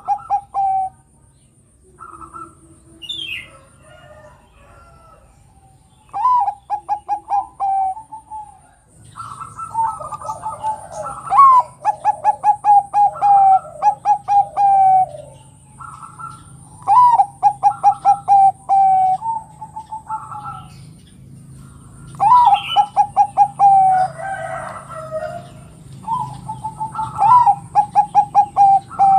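Bangkok-type zebra dove (perkutut) cooing. It repeats phrases of quick staccato coo notes, each a second or two long, about half a dozen times.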